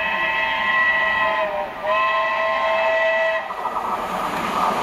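Steam locomotive 70000 Britannia whistling two long blasts, each several steady notes sounding together, the second starting with a slight rise in pitch. After the whistle, the approaching train's running noise builds up.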